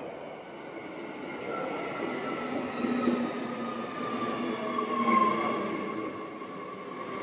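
Transperth electric suburban train pulling into the platform and slowing, the rumble of its wheels on the rails under a whine from its traction motors that falls steadily in pitch as it brakes. It is loudest as the cars pass about five seconds in.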